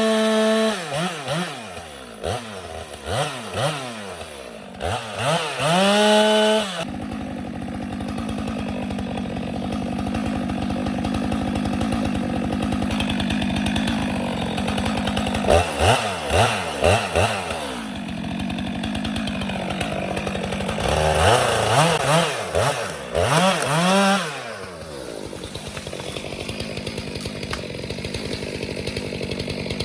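Two-stroke chainsaw cutting a tree. It is held at full throttle at first, then revved up and down in quick bursts, with steady lower running in between and two more clusters of revs later on.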